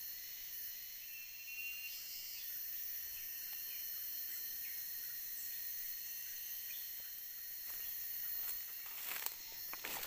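A steady insect chorus, a high-pitched whine with several held tones, with a few faint short chirps a few seconds in. A few sharp clicks near the end.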